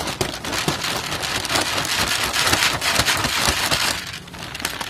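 Dry cat kibble pouring from its bag into a plastic jar: a steady rattle of many small pellets hitting the jar and each other, which thins out about four seconds in.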